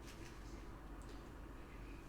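Quiet room tone with a low steady hum and a couple of faint ticks, one near the start and one about a second in.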